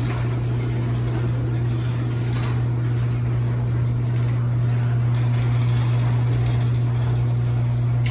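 Electric garage door opener running steadily as it drives the door, a constant low hum.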